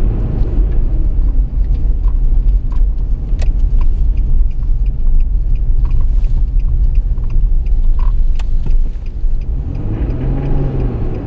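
Steady low rumble of a car's engine and tyres heard from inside the moving car, with a few faint light clicks.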